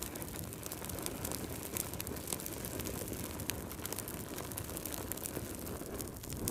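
Wood fire crackling in a fireplace: a steady low rumble of burning with frequent sharp pops and snaps.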